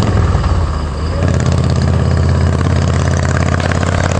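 A 2013 Camaro SS's 6.2-litre LS3 V8 with a GT-11 camshaft, long-tube headers, high-flow cats and a 3-inch true dual exhaust with X-pipe and Flowmaster Pro HP mufflers, idling just after start-up, pretty throaty. The idle holds steady, with a slight dip in level about a second in.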